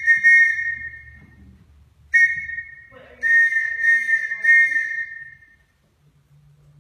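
A whistle blown as a Morse code signal, the 'starting code' of the message: a long blast dying away about a second in, a short blast about two seconds in, then a longer blast from about three seconds that stops about five and a half seconds in.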